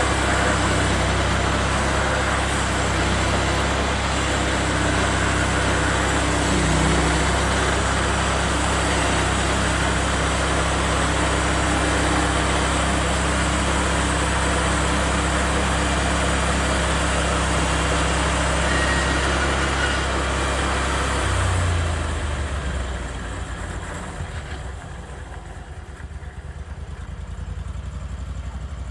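Woodland Mills HM136MAX bandsaw sawmill's petrol engine running steadily at high speed with a loud, broad noise over it. About twenty-two seconds in the engine note changes, and it then settles to a quieter, lower idle.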